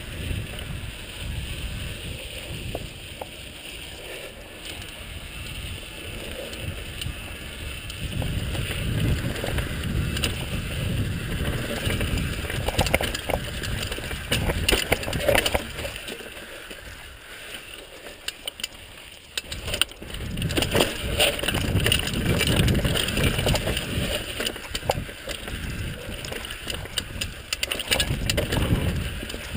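Mountain bike coming down a rocky dirt trail: tyres rumbling over gravel and rock, with frequent clatter and rattling knocks from the bike, and wind rushing on the microphone. It eases for a few seconds past the middle, then picks up again.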